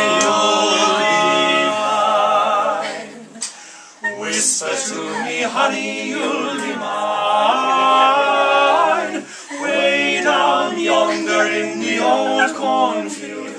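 Male barbershop quartet singing a cappella in close four-part harmony. A chord held at the start fades away about three seconds in, and the singing starts again a second later, with a short break about nine and a half seconds in.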